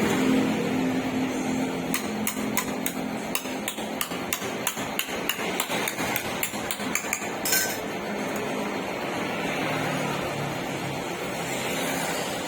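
Hammer tapping on car body sheet metal in panel beating: a quick run of light blows, about four or five a second for some five seconds, followed by a short hiss.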